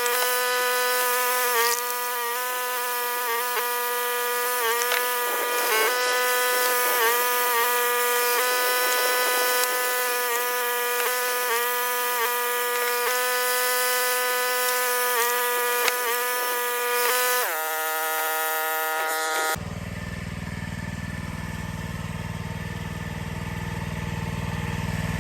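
Log splitter running: a steady high-pitched whine whose pitch sags briefly every second or so as it takes load. It drops in pitch near the end and then gives way abruptly to a low, steady engine rumble.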